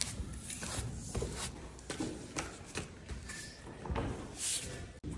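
Irregular short knocks and clicks from parquet work, wooden boards being handled and fitted, with one longer scraping sound near the end.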